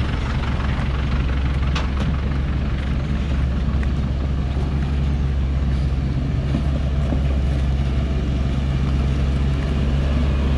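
Diesel engine of a log-laden truck running at a steady engine speed, a deep, even drone close by.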